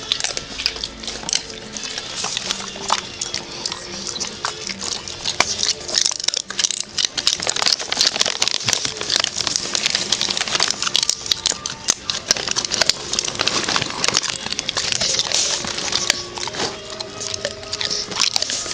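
A hungry dog eating dry kibble off the ground: rapid crunching and chewing close to the microphone, a dense run of crackly bites.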